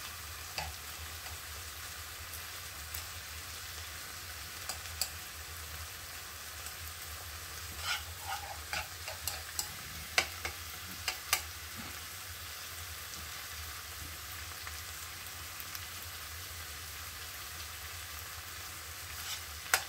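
Chopped vegetables sizzling in a non-stick frying pan while a metal spoon stirs and mashes them, with scattered clicks and scrapes of the spoon against the pan, busiest about eight to eleven seconds in.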